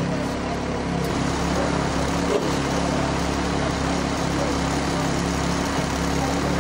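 An engine idling with a steady, even low drone.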